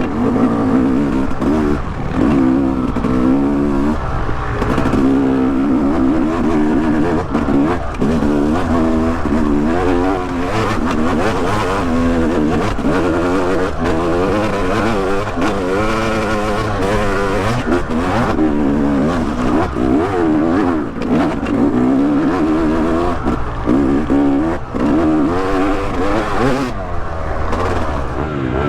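Yamaha YZ250X two-stroke single-cylinder dirt bike engine revving up and down over and over, its pitch rising and falling every second or two as the throttle is opened and closed.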